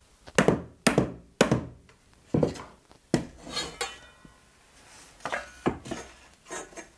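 A mallet tapping the corner joints of a wooden canvas stretcher bar frame: about eight dull knocks at irregular intervals, nudging the joints to bring the frame square. A brief ringing clink comes about midway.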